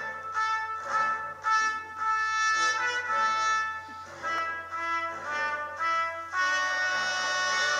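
Brass music: a tune played as a run of separate held notes, one or two a second, going into a longer held chord about six and a half seconds in.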